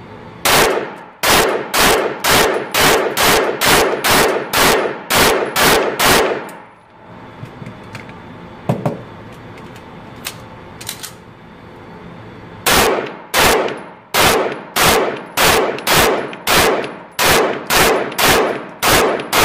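Semi-automatic pistol firing in an indoor range: a string of about fifteen shots at roughly three a second, each shot echoing off the walls, then a pause of about six seconds with only a couple of small clacks, then a second string of about fifteen shots near the end.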